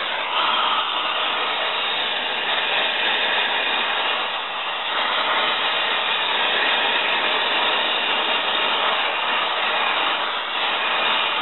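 Oxy-acetylene torch flame burning with a steady hiss, heating rusted-in bolts to loosen them.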